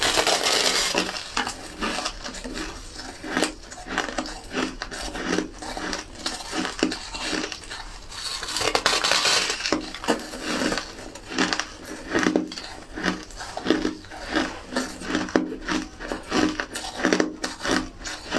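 A person biting into and chewing a large chunk of crumbly white ice, with crisp crunching. A long crunching bite comes at the start and another about nine seconds in, with quick, irregular chewing crunches between.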